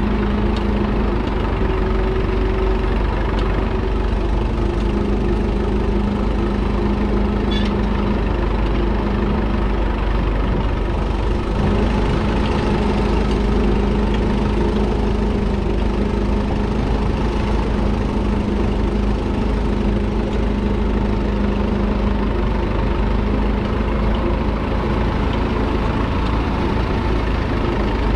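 1942 Fordson Model N's 4.4-litre four-cylinder TVO engine running steadily under load as the tractor pulls a two-furrow trailed plough.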